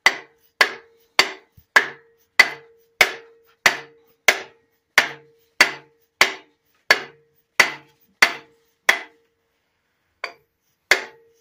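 An orange plastic mallet tapping a large helical timing gear onto its shaft on a diesel engine's front gear plate. Steady blows come about every 0.6 s, each leaving a brief ring; they pause for about a second near the end, then resume.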